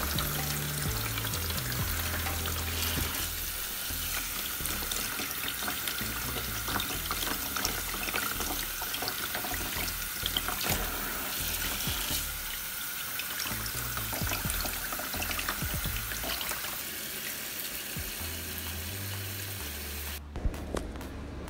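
Kitchen tap running into a basin of water in a sink, the stream splashing over broccoli and cauliflower turned by hand under it to rinse them; the water stops about 20 seconds in. Background music with a low bass line plays underneath.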